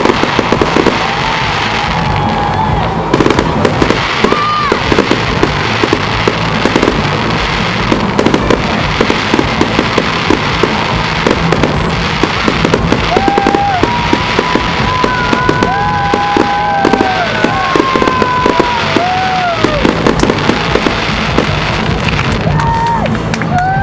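Fireworks display: a dense, irregular run of aerial shells bursting and crackling. In the second half, several held tones sound over the bangs.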